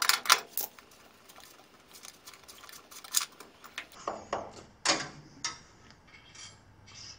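Hand wrench clicking and clinking against the metal nuts of the cable fittings on a machine's electrical box as the stuck nuts are worked loose. A cluster of sharp clicks comes at the start, and another about four to five and a half seconds in.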